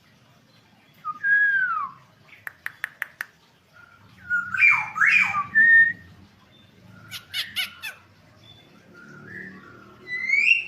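Black-naped oriole (kepodang) calling: loud slurred whistles that bend down and up, with harsh rasping notes around seven seconds in and a rising whistle at the end. A quick run of five short sharp clicks comes between the first whistles.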